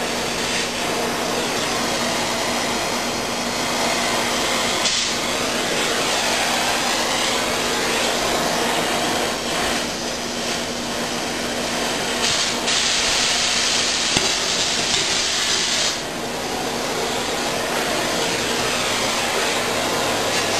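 Cutting torch burning through steel at the bottom of a snowblower's auger housing: a steady, continuous hiss of flame and cutting gas. The hiss grows brighter and harsher for a few seconds about two-thirds through.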